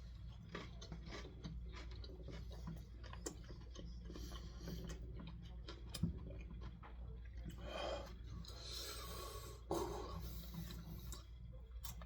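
Faint chewing of a breaded fried chicken tender, with scattered small crunches and mouth clicks.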